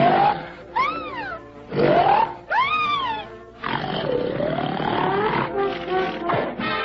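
A person snoring loudly: about four rough breaths, some with a whistling pitch that rises and falls, over background music.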